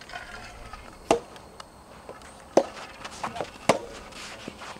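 Soft tennis serve and rally: rackets striking the soft rubber ball, three sharp hits a second or so apart, with fainter knocks between them.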